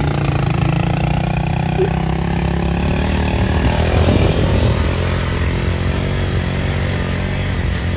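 Motorcycle engine running steadily while riding, its note shifting briefly about four seconds in.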